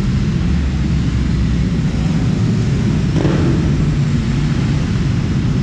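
Ducati Panigale 1299 S's big L-twin engine idling steadily with the bike standing still, with a brief brighter swell about three seconds in.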